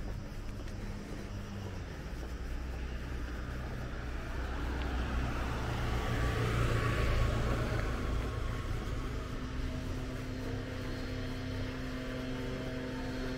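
A car passing, its sound growing to a peak about seven seconds in and then fading away.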